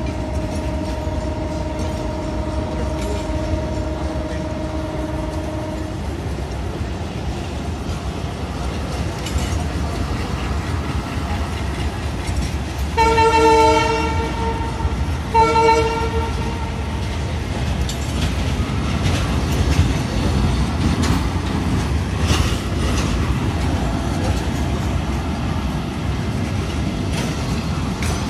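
Coaches of a departing passenger train rolling past with a steady low rumble and some wheel clatter. The locomotive's horn sounds two short blasts about halfway through, and a steady held tone sounds for the first six seconds, then stops abruptly.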